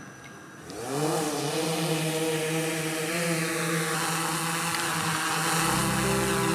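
Quadcopter drone's motors spinning up about a second in with a rising whine, then a steady high buzzing hum from the propellers as it lifts off. Near the end, music with a low bass comes in under it.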